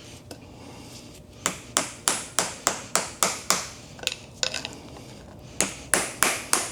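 Rapid light hammer taps with a metallic clink, knocking an old cover loose on a steering rack: a quick run of about ten taps, a short pause with a couple more, then another quick run.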